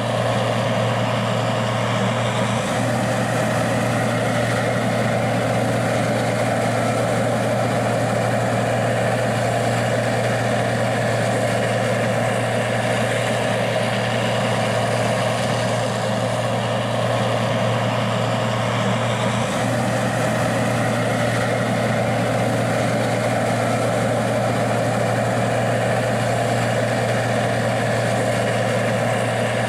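Gleaner R60 combine's diesel engine running steadily, a constant low hum with no change in speed.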